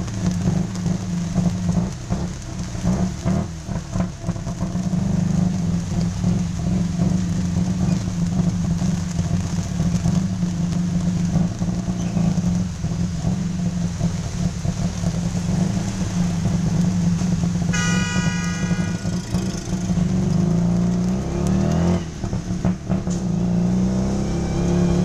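A tuk tuk's small engine running steadily as it drives through traffic, revving up about three quarters of the way through. A short high tone sounds once, lasting about a second, a little before the revving.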